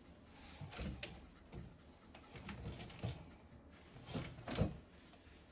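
A scatter of soft knocks and thumps at irregular intervals, the loudest two close together near the end.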